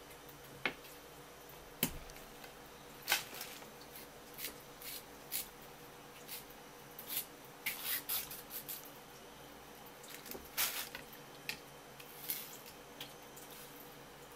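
Kitchen knife scraping and tapping along a split conger eel fillet on a wooden cutting board: irregular short scrapes and clicks as the blood line is cleaned off.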